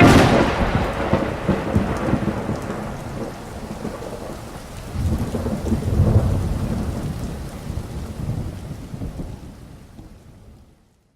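Thunder over rain: a sharp thunderclap as the music cuts off, then a second rolling rumble about five seconds in, the whole storm fading out near the end.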